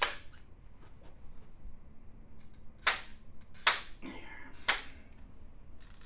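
Electric handheld chiropractic adjusting instrument firing against the upper back and shoulder, giving sharp clicks: one right at the start, then three more about a second apart in the second half.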